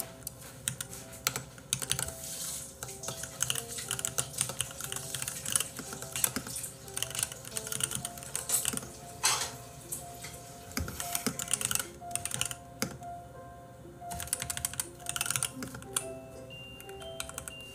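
Computer keyboard being typed on in quick runs of clicks with short pauses, over soft background music with a slow melody.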